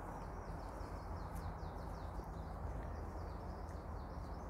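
A songbird singing two phrases of quick, repeated high notes, the first lasting about two seconds and a shorter one near the end, over a steady low outdoor rumble.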